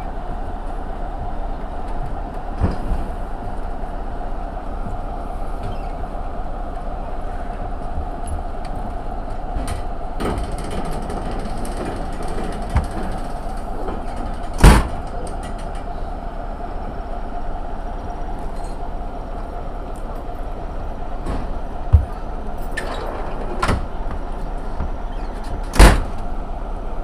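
Diesel-hauled passenger train running slowly, heard from an open carriage window: a steady hum broken by a handful of sharp knocks as the wheels cross rail joints and pointwork.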